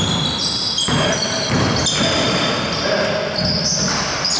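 A basketball being dribbled on a hardwood gym court, with players' voices in the hall.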